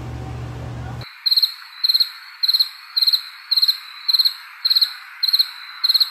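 A low steady hum of room tone for about a second, then a sudden cut to crickets chirping: short rapid trills repeating about twice a second over a faint hiss. This is the stock "crickets" sound effect for an awkward silence.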